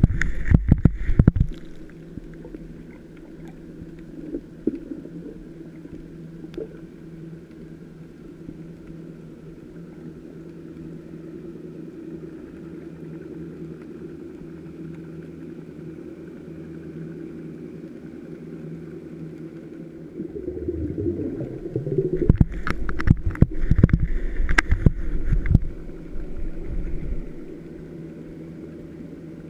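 Boat engine heard through the water as a steady low hum. It swells with a rising and falling pitch about 20 seconds in, then fades back. Bursts of sharp knocks and crackles come at the very start and again from about 22 to 26 seconds in.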